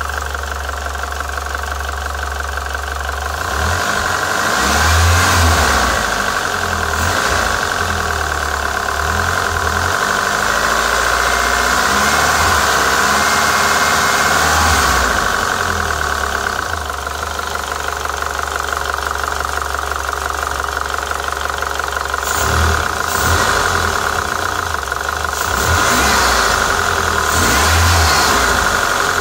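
Chrysler PT Cruiser GT's 2.4-litre turbocharged 16-valve four-cylinder running with a diesel-like clatter. The owner had taken the noise for lifter tick, and cleaning and refitting the lifters, rockers and cam caps has not cured it.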